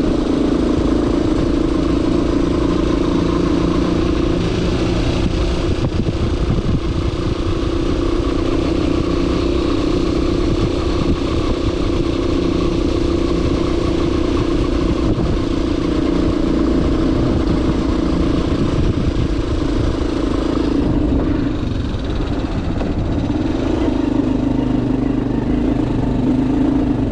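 Motorcycle engine running steadily while being ridden, with a low rumble of road and wind noise.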